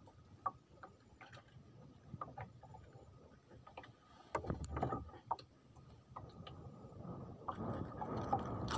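Irregular small clicks and knocks of hands working fishing line and gear in a small wooden boat, with a louder scuffle of knocks about four seconds in and a rising rustle near the end.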